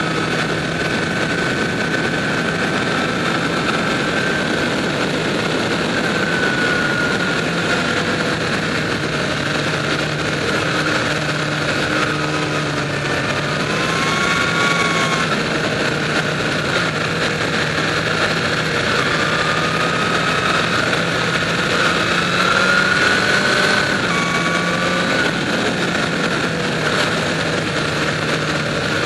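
Motorcycle engine running at road speed under a steady rush of wind and road noise. The engine note falls and rises again a few times as the throttle is eased and opened through the curves.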